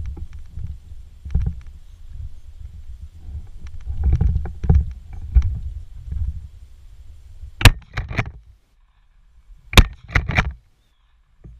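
Footsteps through dry grass with wind rumbling on the microphone, then two sharp shotgun shots about two seconds apart in the second half, the second one the loudest.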